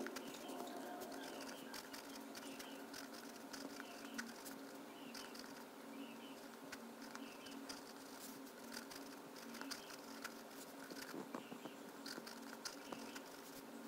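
Pen writing on notebook paper: faint, irregular scratching and tapping strokes over a steady low hum.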